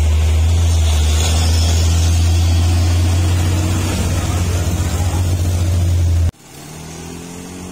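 Diesel engine of a loaded cargo truck labouring up a steep hairpin close by: a loud, steady deep drone with a hiss over it. The drone breaks off suddenly about six seconds in, leaving a much fainter hum.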